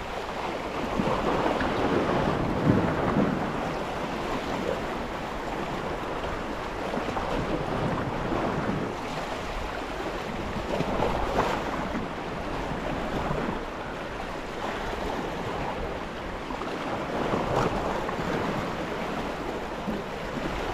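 Sea waves washing onto the shore, a steady wash that swells louder every few seconds, with wind on the microphone.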